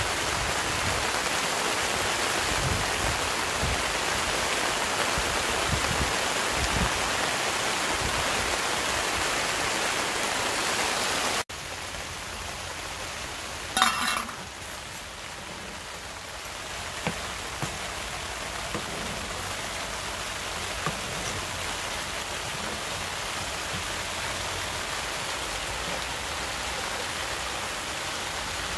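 Heavy rain pattering on a gazebo canopy. About eleven seconds in it cuts to a quieter steady hiss as a pan cooks on a camping gas stove, with a sharp knock soon after and a few light taps of a wooden spoon stirring the pan.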